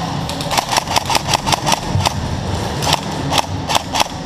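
Airsoft guns firing in short, irregular strings of sharp cracks, several a second, over a steady low rumble.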